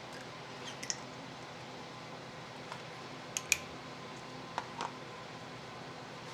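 A few light, sharp clicks and clinks of small parts being handled during shock reassembly, the loudest about three and a half seconds in, over a faint steady hum.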